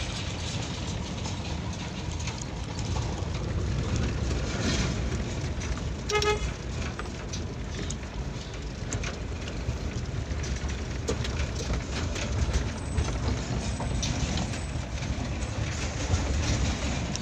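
Vehicle driving on a rough dirt road, heard from inside the cab: a steady engine and road rumble with scattered knocks from the rough surface. A short horn beep about six seconds in.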